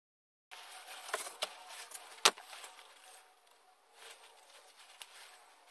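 Handling sounds at a workbench with a steel sheet: after a moment of silence, a few sharp clicks and knocks, the loudest a single knock a little over two seconds in, then faint rustling over quiet room noise.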